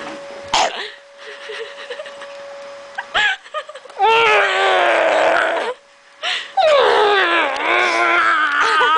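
A dog howling: two long drawn-out cries, the first about four seconds in and the second from about six and a half seconds, each sliding slowly down in pitch.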